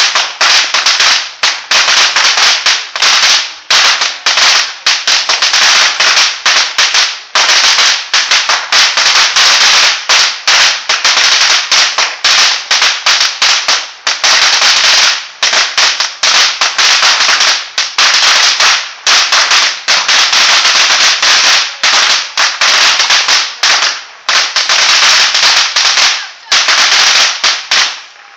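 Firecrackers going off in a dense, rapid run of cracks and pops, nearly continuous with only brief short gaps.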